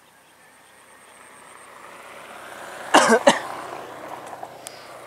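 A person coughs twice, sharply, about three seconds in, over a rushing background noise that swells and then fades.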